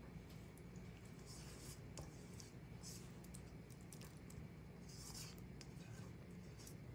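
A few faint soft rustles and light clicks as pieces of cooked bok choy are dropped onto a heaped serving bowl, over a low steady hum.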